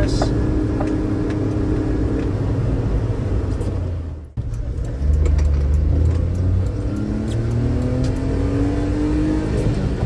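Honda Acty kei truck with a Giga N1 aftermarket exhaust, heard from inside the cab while driving: a steady engine and exhaust drone, reading about 73 to 84 dB on an in-cab meter. It drops out briefly about four seconds in, then runs again louder, the engine note rising in pitch near the end as it accelerates.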